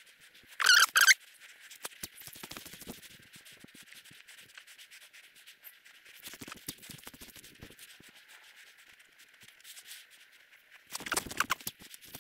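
Spinning reel being wound to retrieve a lure, a faint fine ticking whir with some rod-handling rubs. There is a loud, short squeak about half a second in and a brief knock near the end.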